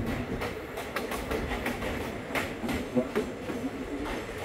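Passenger train running on the track: a steady rumble with irregular clicks and knocks of the wheels over rail joints.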